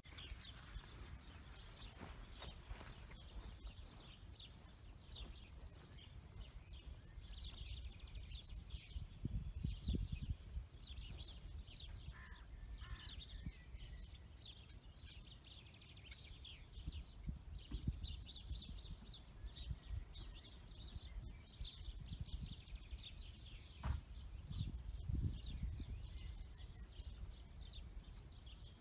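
Small birds chirping and singing throughout in open countryside, with low gusts of wind rumbling on the microphone, strongest about ten seconds in and again later on.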